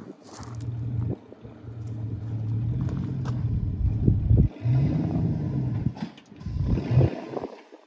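Vehicle engine running and revving, rising and falling. The sound breaks off abruptly several times.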